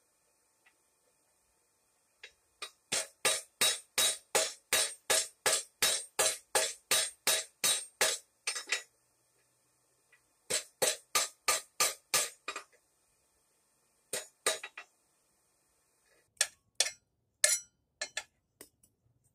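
Hammer blows on hot steel on a steel anvil, each strike ringing, about three a second in a long steady run, then a shorter run after a brief pause and a couple more strikes. A few scattered knocks near the end.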